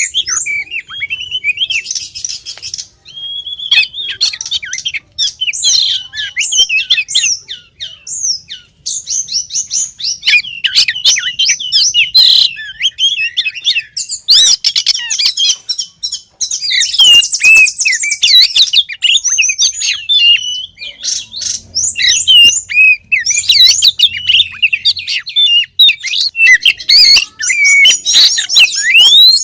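Female Oriental magpie-robin (kacer) singing a continuous, rapid stream of varied whistles and chirps, with harsh buzzy rasping notes about two seconds in and again past the middle. This is a female's call used to lure and provoke males.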